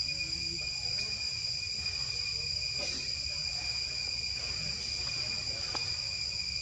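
Chorus of insects, cicadas or crickets, making a steady, unbroken high-pitched drone, with a low rumble underneath.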